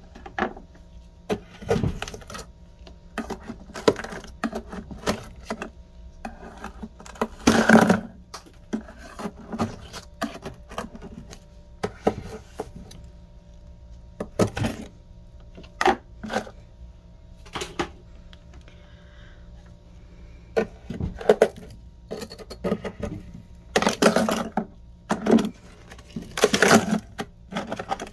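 Thick freezer frost being chipped and pried apart with a knife: irregular sharp cracks and crunches as the packed frost breaks, heaviest in clusters about eight seconds in and near the end, over a steady low hum.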